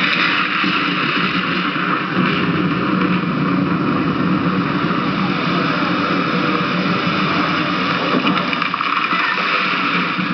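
Steady, loud rush of water: a simulated downpour from overhead spray falling on foliage, and a flood torrent pouring down a rocky channel.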